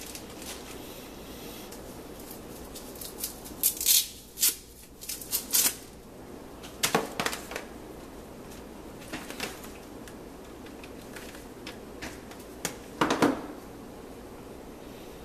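Handling noises: short clicks and rustles in a few separate clusters as a laptop's charging cable is uncoiled and plugged in.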